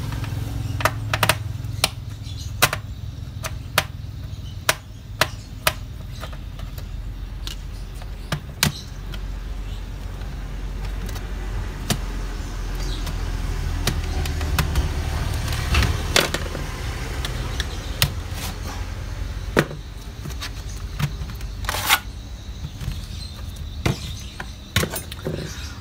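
Small screwdriver working screws out of an Acer laptop's plastic bottom case, giving scattered clicks and taps of metal on plastic, over a steady low rumble of background traffic. Near the end the laptop's optical drive is handled and slid out, with a few more knocks.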